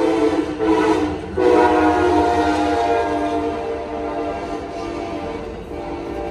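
Passenger train's air horn blowing a held chord of several tones. There is a short break about a second in, then the horn sounds again and slowly gets quieter.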